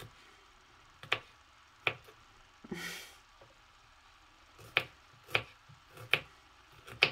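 Kitchen utensils knocking against dishes: several sharp knocks and clicks spaced irregularly, with a brief scraping rustle about three seconds in.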